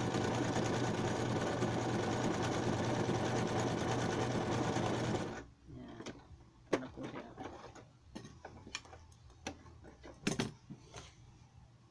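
Electric sewing machine running steadily, stitching a zigzag through a sheet of paper, then stopping about five seconds in. After it stops come scattered light clicks and handling noises as the sheet is pulled from under the presser foot.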